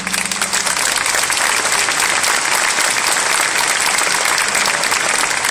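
Crowd applauding, dense steady clapping that swells in as the last held note of the show's music dies away.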